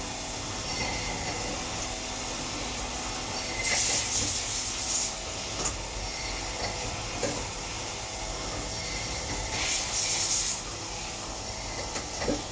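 CNC machine running as it machines a 304 stainless steel part: a steady machine hum with hiss. Twice, about four seconds and ten seconds in, a louder high hiss lasts about a second.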